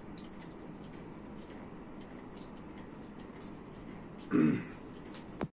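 Quiet room background with faint scattered ticks, and a short sound from a person's throat about four seconds in. The sound cuts off abruptly at the end.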